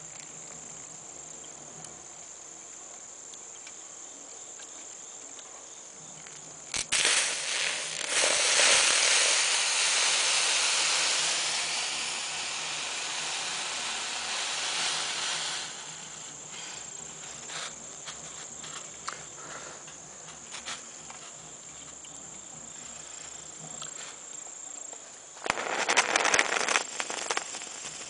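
Homemade steam boiler hissing as water fed back through its copper heat-exchanger coil makes steam. The hiss starts with a few sharp pops, swells, then fades out after about eight seconds. A short crackling, sputtering burst comes near the end, over a steady high trill of crickets.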